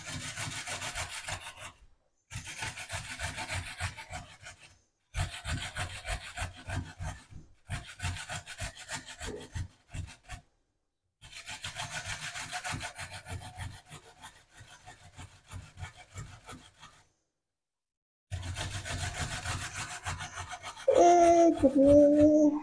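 A vegetable being grated by hand on a handheld slicer-grater with a plastic hand guard, in runs of quick back-and-forth strokes with short pauses between them. About two seconds before the end, a loud held child's voice comes in over the grating.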